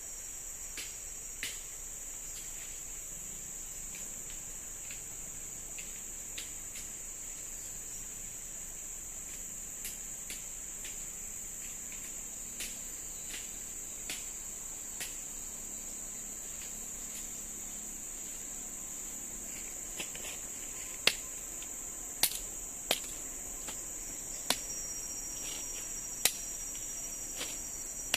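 Steady high-pitched chorus of forest insects, with scattered sharp clicks and knocks; about five louder knocks come in the second half.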